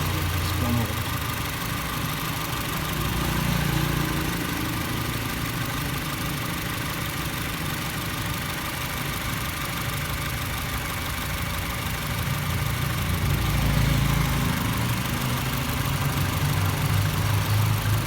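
Honda City ZX GXi's four-cylinder petrol engine idling steadily, its low hum swelling slightly a couple of times, while a water-and-vinegar solution is slowly drawn into its air intake from a syringe to decarbonize it.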